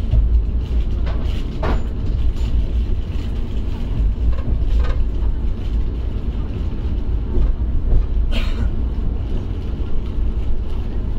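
Shatabdi Express passenger coach running at speed, heard from inside the coach: a steady low rumble of the wheels and running gear, with a few sharp clanks about 1.5, 5 and 8.5 seconds in.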